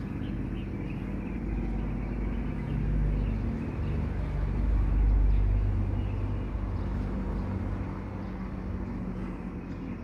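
Low engine rumble of a passing motor vehicle, swelling to its loudest about halfway through and then fading.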